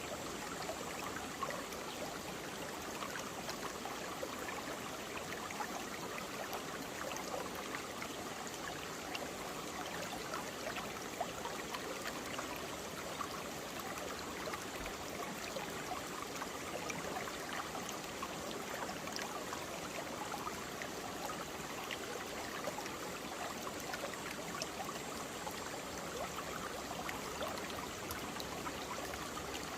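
Mountain valley stream flowing steadily over rocks, an even rush of water with small splashes and trickles.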